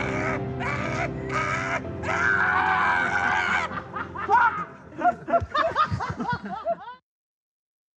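A man's cackling laughter in repeated bursts over sustained music chords, breaking into short choppy laughs about four seconds in. All sound cuts off abruptly about a second before the end.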